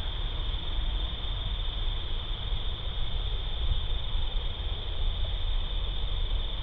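Low, steady wind rumble on the microphone, with a continuous high-pitched buzzing tone that holds one pitch.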